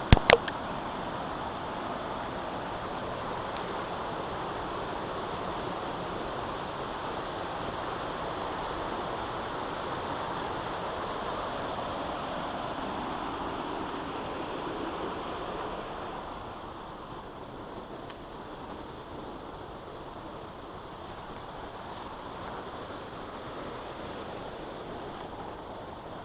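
Steady rush of water from a small waterfall on a creek, getting quieter about two-thirds of the way through. A few sharp clicks right at the start.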